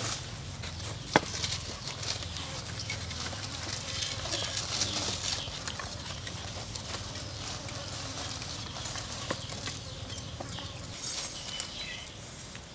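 Scattered light wooden clicks and taps as split bamboo slats are handled and laid across two wooden poles on a concrete floor, with one sharp knock about a second in, over a steady high forest hiss.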